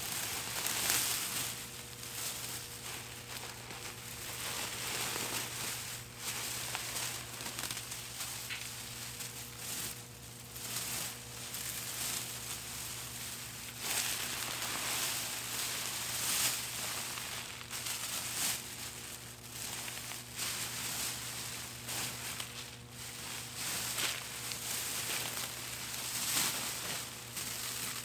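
Irregular rustling and crinkling as gloved hands dig through loose soil, dry stalks and black plastic mulch to pull up Chinese artichoke tubers. A faint steady low hum runs underneath.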